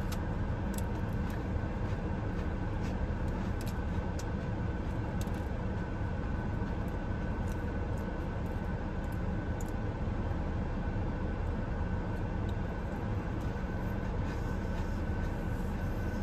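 Steady low rumble inside a parked car's cabin, with a faint steady high tone, and scattered faint crunchy clicks of someone chewing a chocolate chip cookie.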